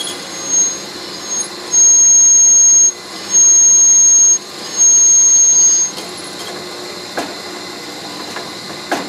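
Twist drill on a Delta drill press cutting a through hole in oiled brass; the bit gives a loud, high-pitched squeal three times, about a second each, over the steady running of the drill press.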